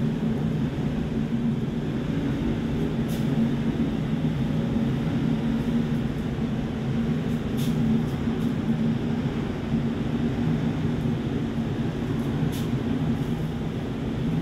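Steady low rumble of wind around the top of a lighthouse, with a few faint clicks.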